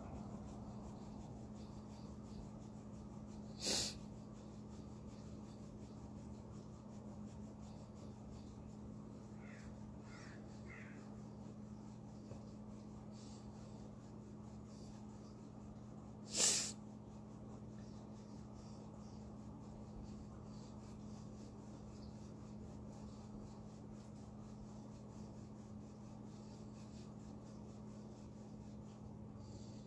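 Two short, sharp breaths or sniffs through the nose, about four seconds and sixteen seconds in, over a steady low hum.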